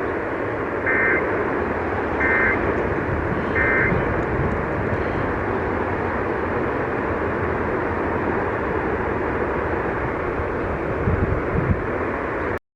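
Emergency Alert System end-of-message data bursts: three short two-tone warbles about a second and a half apart, closing the monthly test. They sit over steady radio hiss and static, which cuts off suddenly near the end.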